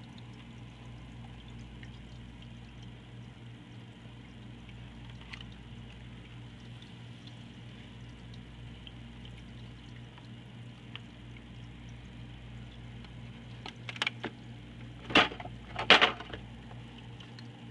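AquaClear 50 hang-on-back aquarium filter running: water pouring steadily from its outflow over a low, steady pump hum. Near the end come three or four sudden loud knocks from the filter being handled.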